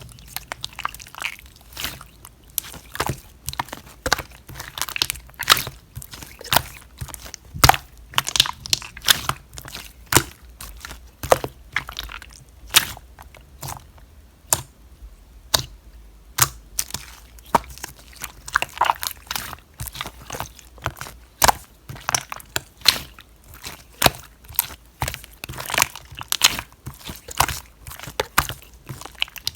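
Hands pressing, squeezing and stretching slime, making an irregular run of sharp popping clicks and crackles, several a second.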